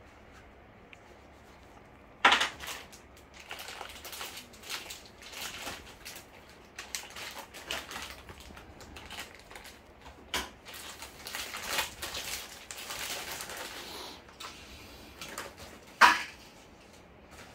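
Rustling, clicking and clattering of objects being handled, with a sharp knock about two seconds in and another near the end.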